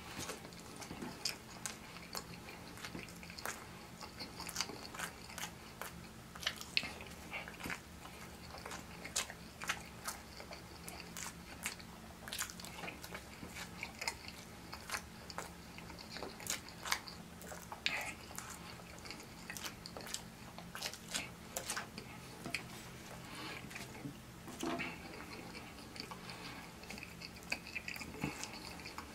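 A man chewing pancake-and-sausage on a stick: mouth-eating noises of irregular clicks and smacks with no set rhythm.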